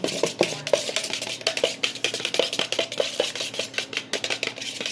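Eggs being beaten in a cup with a utensil, a fast run of light clinks against the cup's sides.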